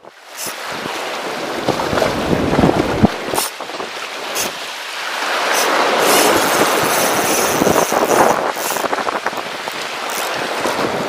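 Sea waves washing and splashing against concrete tetrapods, with wind buffeting the microphone, swelling louder from about five seconds in.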